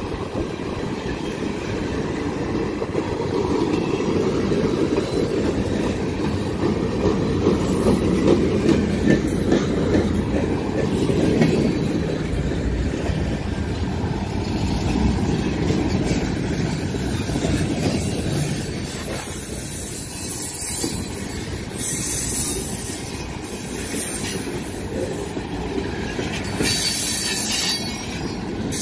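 Freight cars rolling past close by: a steady rumble and clatter of wheels on rail, with high-pitched squeals from the wheels that come and go through the second half.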